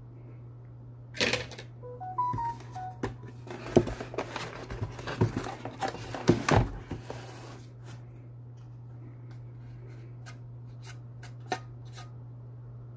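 Handling noise as a graphics card is lifted out of its box tray: rustling, scraping and sharp clicks of the card against cardboard and plastic packaging. The handling is busiest from about one to seven and a half seconds in, with a few light clicks later, over a steady low hum.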